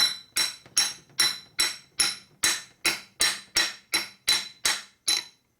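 Heavy hammer tapping lightly and evenly on a steel pipe used as a seal driver, about two and a half blows a second, each with a short metallic ring. It is working an oil seal into the shovelhead engine case a little at a time.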